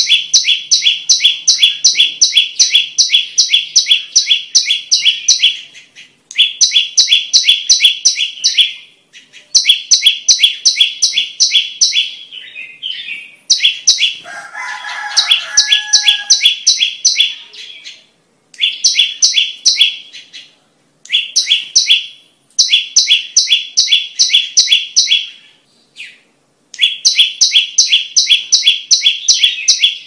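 Prenjak lumut (tailorbird) singing: runs of loud, rapid, evenly repeated high notes, about three to four a second, each run lasting a few seconds with short pauses between. A different, lower call sounds briefly near the middle.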